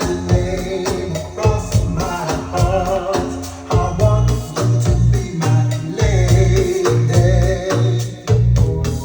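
Music played back through a Bang & Olufsen Beomaster 5500 receiver: a heavy, regular bass beat under sustained organ-like keyboard chords and percussion.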